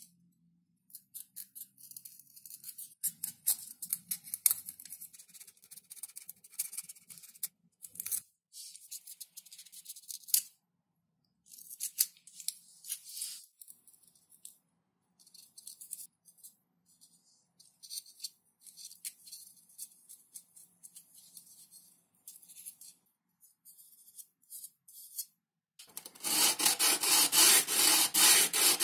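Close handling of XPS foam parts and small plastic hinges: scattered soft rubs, scrapes and ticks with short quiet gaps. From about 26 s in, a loud run of fast, even rubbing strokes against the foam.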